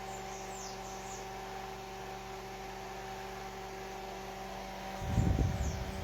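Microwave oven cooling-fan motor running with a steady electrical hum of several fixed tones. About five seconds in, a loud low rumble of air buffeting the microphone sets in.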